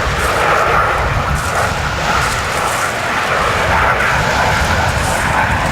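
Aircraft engines droning steadily as display aircraft fly over, a loud, even sound with a low rumble underneath.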